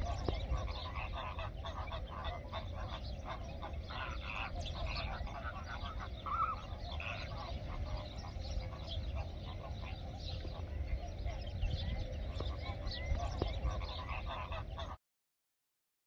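A flock of flamingos honking and chattering, many short calls overlapping over a low rumble, cutting off suddenly near the end.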